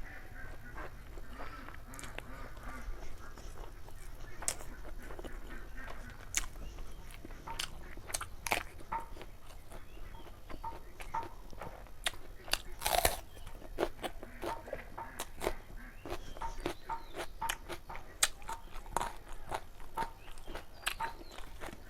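Close-up eating sounds of chicken liver, feet and gizzard curry: wet mouth clicks, biting and crunching, one louder crunch about halfway through.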